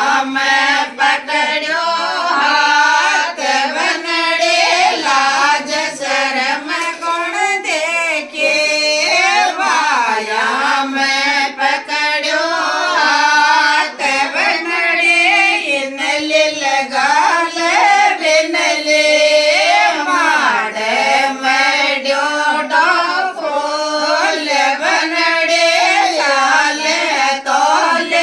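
Women singing a Shekhawati banna-banni wedding folk song together, in one continuous melodic line.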